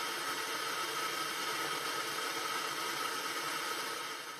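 Television static: a steady hiss of white noise that fades away near the end.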